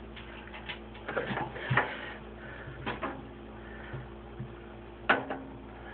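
Scattered clicks and knocks from rummaging inside a washing machine, the loudest a sharp knock about five seconds in, over a faint steady hum.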